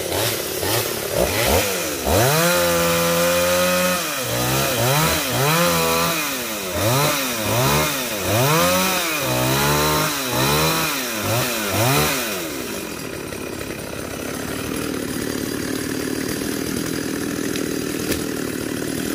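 Two-stroke chainsaw revving up and down over and over as it cuts through tree branches, about once a second. About twelve seconds in the revving stops and a steadier, lower engine drone carries on.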